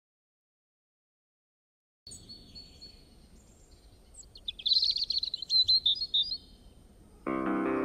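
Birds chirping over a faint background hiss, with a louder run of rapid chirps in the middle, after about two seconds of silence. Near the end, music comes in suddenly.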